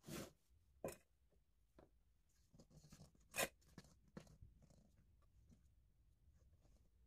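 A spatula tapping and scraping against a stainless steel mixing bowl while macaron batter is scraped out: about five short knocks and scrapes with fainter ticks between them, the loudest about three and a half seconds in.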